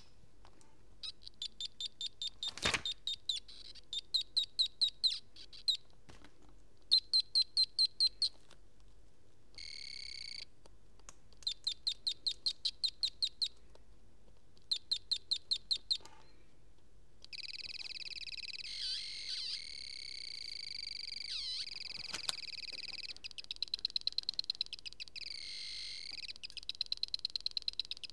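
Piezo speaker of a solar-powered 74HC14 Schmitt-trigger synth (a Solar Sound Module) chirping out bursts of rapid high-pitched pulses, several a second, stopping and changing as the lead is moved to different pins of the chip. After the middle it gives a continuous warbling high buzz for several seconds, then faster chirping pulses again. There is one sharp click near the start.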